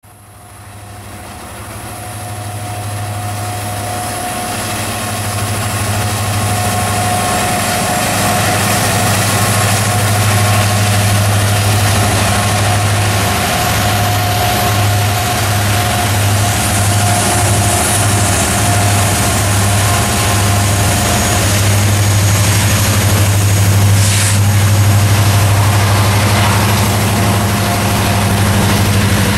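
BNSF diesel-electric freight locomotives running with a steady, deep engine drone as they lead a loaded coal train past at close range. The sound grows louder over the first few seconds and then holds steady.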